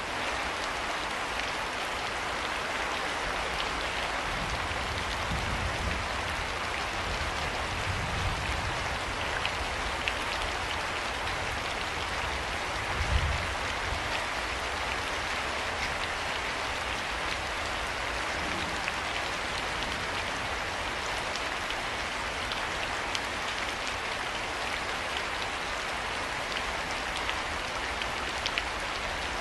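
Steady rain falling, a dense hiss with scattered sharp drop ticks. A low thump comes about thirteen seconds in.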